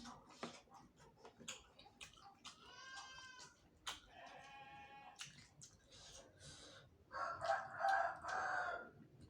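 A rooster crowing, loudest in one long call near the end with fainter calls earlier, over short clicks and smacks of eating.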